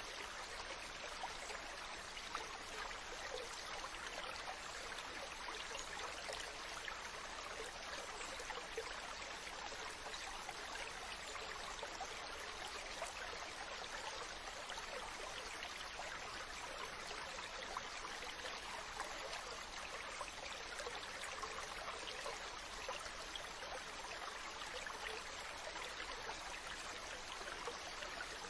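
Ocean ambience: a steady, even wash of water with no distinct wave swells.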